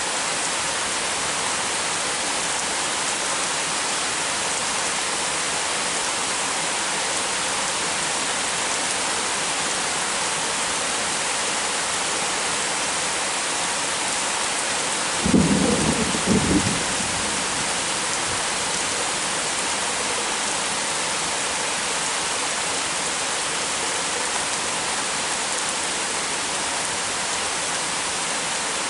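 Heavy rain falling steadily, with one sudden thunderclap about halfway through that lasts about a second and a half.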